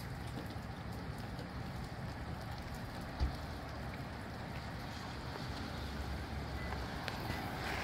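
Steady rain falling, with a brief low thump about three seconds in; the noise swells slightly near the end as the wind picks up.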